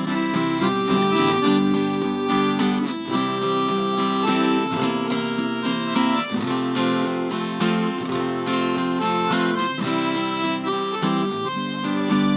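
Instrumental introduction to a sertanejo song: a harmonica plays the melody over strummed acoustic guitar.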